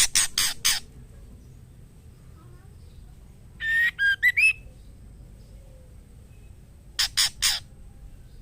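Female white-rumped shama in breeding condition calling for a male: a quick run of four harsh notes at the start, a short whistled phrase of rising and falling notes in the middle, and three more harsh notes near the end.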